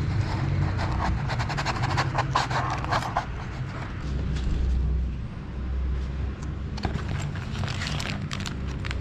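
A delivered package being opened by hand: scraping, rustling and tearing of cardboard and packing, in two bouts of quick scratchy strokes, over a steady low hum.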